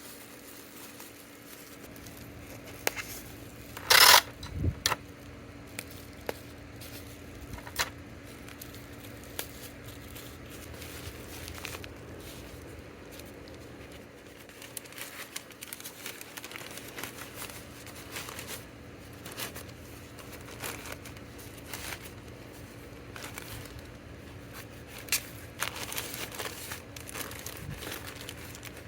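Plastic packaging crinkling and rustling as small orders are packed by hand, with scattered light taps and clicks. A brief loud rasp about four seconds in is the loudest sound.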